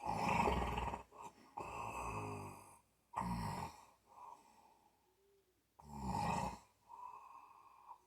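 Snoring: a run of about five rough, rattling snoring breaths, each under a second long, with a pause of about two seconds in the middle.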